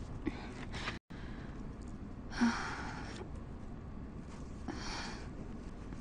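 A woman's breathy sighs: a longer one about two and a half seconds in and a shorter one near five seconds, over a faint steady room background.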